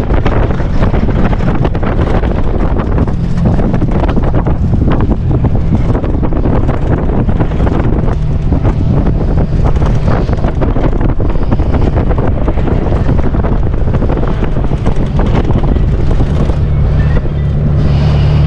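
Heavy wind buffeting on the microphone of a GoPro on an open-top Jeep Wrangler driving across sand, with the Jeep's engine running steadily underneath. The low engine note grows a little stronger near the end.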